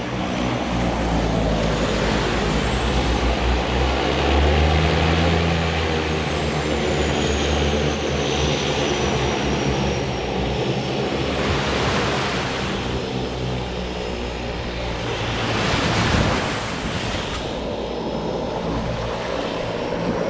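Propeller seaplane engine droning, loudest about five seconds in and then easing, with a high whine that rises and falls. Small lagoon waves wash onto the sand twice in the later part, around twelve and sixteen seconds in.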